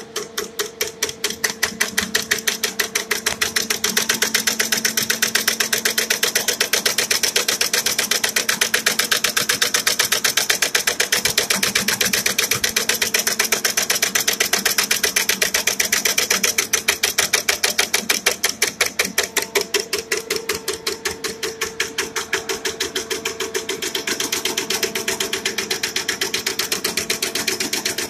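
Wire nail rolling machine running, a fast, even clatter of several strokes a second over a steady hum.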